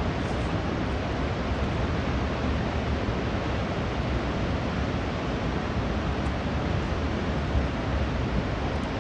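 Waterfall in Yellowstone: the continuous, even rush of falling water.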